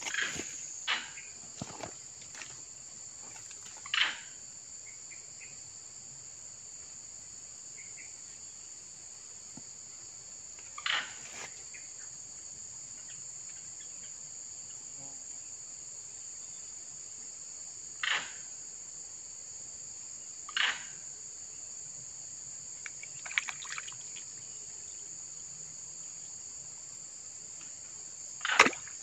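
Steady, high-pitched chorus of insects, with a short sharp knock every few seconds as the loudest sound.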